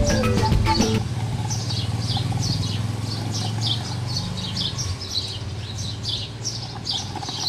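Bird chirping: a long run of short, falling chirps, a few a second, over a steady low hum. Background music plays for about the first second, then stops.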